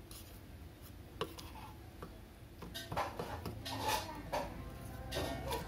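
Metal tweezers clicking and tapping against a metal solder-pot tray as they stir molten scrap solder and its dross, in a few scattered light ticks.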